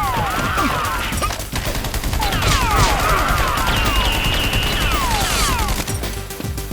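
A gunfight sound effect: a dense volley of rapid shots, with whistling tones laid over it that keep falling in pitch. The volley stops about six seconds in.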